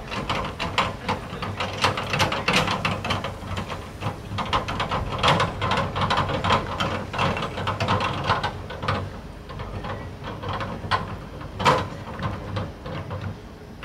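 Metal parts of a small car trailer's hitch being worked by hand: quick, irregular metallic clicks and rattles, with one sharper click near the end, over a steady low hum.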